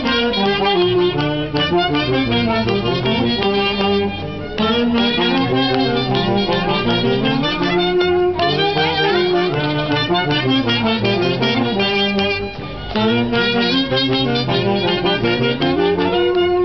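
Live wind band playing festival dance music, a melody of held notes over a moving bass line, with short breaks between phrases about four and twelve seconds in.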